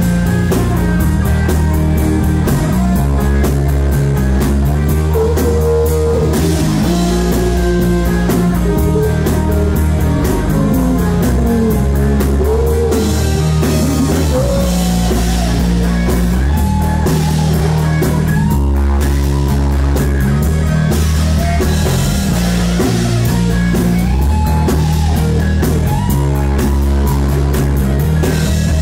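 Rock band playing live: guitar over bass and drum kit in an instrumental passage, with a wavering, bending lead line.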